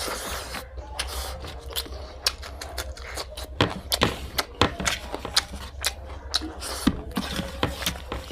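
Close-miked mouth eating pork fry: irregular wet clicks and smacks of chewing, several a second, over a steady low hum.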